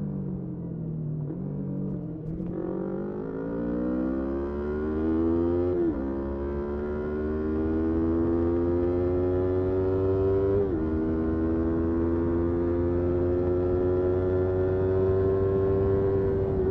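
Motorcycle engine easing off, then accelerating up through the gears: its pitch climbs, drops suddenly at two upshifts about six and eleven seconds in, then holds a steady, slowly rising note.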